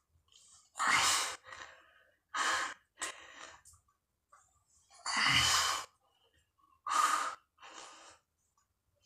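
A man's heavy, laboured breathing under the strain of a long set of push-ups: four loud, noisy breaths a couple of seconds apart, each followed by a weaker one.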